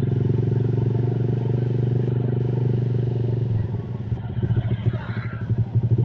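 Motorcycle engine running under way at a steady speed. About three and a half seconds in, the throttle closes and the engine drops to a lower, uneven pulsing as the bike slows.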